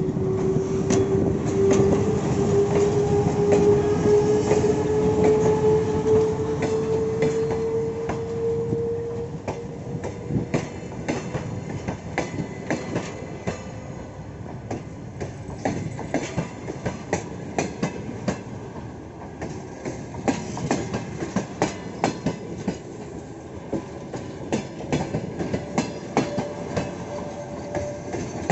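Departing passenger train rolling past: a whine that rises slowly in pitch over the first nine seconds or so, then the carriage wheels clicking over rail joints in quick clusters as the cars go by.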